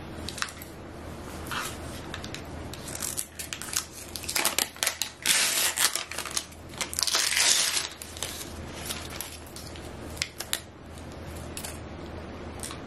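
Paper wrapping being peeled and torn off a MacBook Pro power adapter, crinkling and rustling in short bursts, loudest for a few seconds in the middle.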